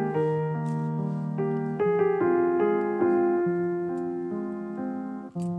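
Slow, gentle background piano music: single notes over held lower notes, with a brief gap near the end.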